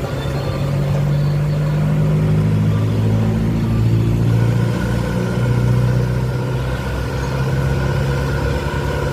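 Backhoe's diesel engine working under load. It rises in pitch and level over the first couple of seconds, then holds a steady hum.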